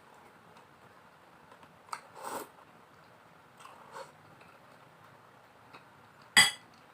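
Spoon clinking against a plate during a meal: a few soft clicks and a short scrape about two seconds in, then one sharp, ringing clink near the end.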